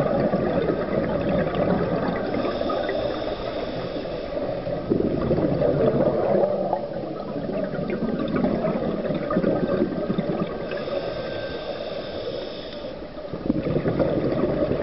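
Scuba divers' exhaled bubbles gurgling underwater, coming in bursts every few seconds as the divers breathe through their regulators.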